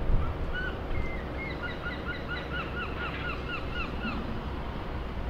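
A gull calling: a rapid series of short, falling notes, about four a second, for a couple of seconds, over a steady low rumble. A thump right at the start.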